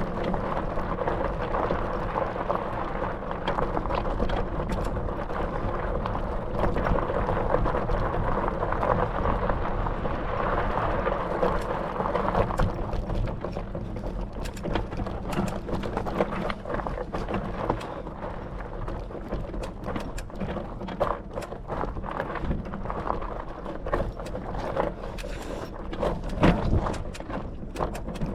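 Bicycle ridden over a rough track: a steady rush of wind and tyre noise for about the first twelve seconds, then a run of rattling clicks and knocks.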